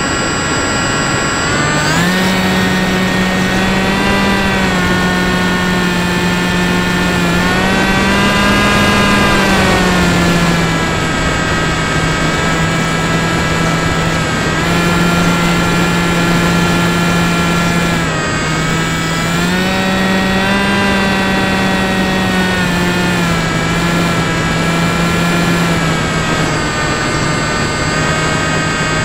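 Small RC aircraft's motor and propeller whining steadily, heard through its onboard camera. The pitch steps up and down a little several times as the throttle changes.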